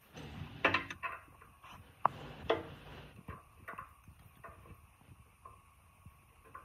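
Metal clanks and clicks from a pipe wrench handled on the rusted pipe fitting of an old air compressor's cylinder head. A few sharp clanks come in the first couple of seconds, then lighter scattered taps and clicks.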